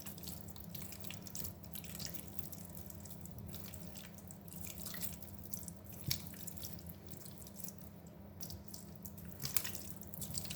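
Hands mixing marinated chicken wings in a tray: irregular wet squelches and smacks of the spice-coated meat, over a steady low hum.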